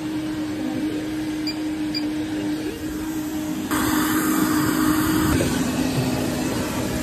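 Steady drone of aircraft engines at an airport: a constant hum with a rushing hiss, which gets louder about four seconds in and then eases a little.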